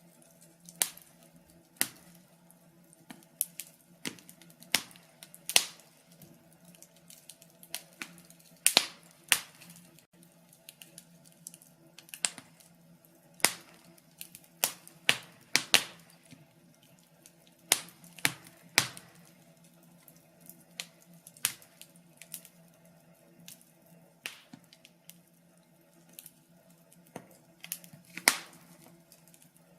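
Wood fire crackling in a fireplace: irregular sharp pops and snaps, sometimes several in quick succession, over a faint steady hum.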